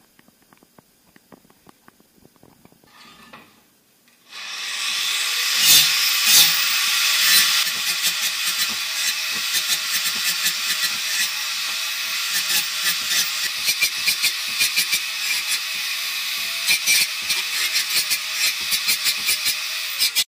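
Handheld angle grinder with a cut-off disc, switched on about four seconds in and then cutting through square steel tubing: a loud, steady hiss of the disc in the steel over the motor's steady whine. Before it starts there are only a few faint clicks.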